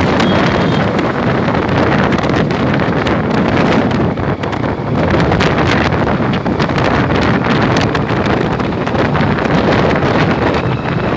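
Wind buffeting the microphone of a vehicle moving at road speed, a loud, steady rushing over the rumble of road noise.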